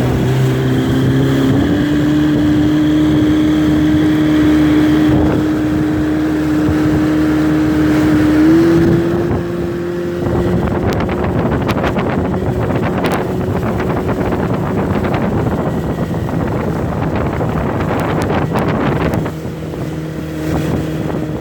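Motorboat engine running under way, its pitch rising over the first couple of seconds and then holding steady, with a slight step up in pitch near the middle. From about halfway through, rough wind noise on the microphone and sharp knocks take over while the engine tone fades.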